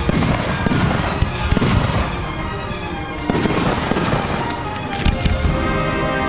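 Aerial fireworks shells bursting in a run of booms and crackles, over music playing throughout.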